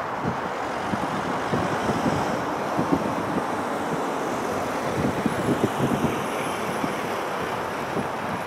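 McDonnell Douglas MD-83's two tail-mounted Pratt & Whitney JT8D turbofans running at taxi power as the jet taxis, heard as a steady rushing noise with a ragged low rumble.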